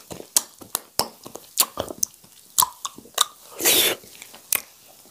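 Close-miked eating mouth sounds: irregular wet smacks and clicks of chewing and fingers being licked, with a short breathy rush about three and a half seconds in.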